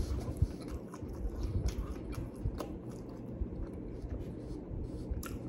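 A man chewing a mouthful of pepperoni pizza, with scattered small mouth clicks.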